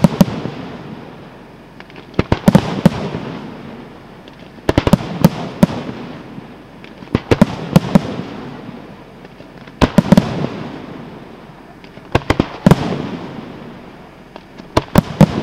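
Aerial firework shells bursting in volleys. A tight cluster of sharp bangs comes about every two and a half seconds, six times, each followed by a fading rumble of echo.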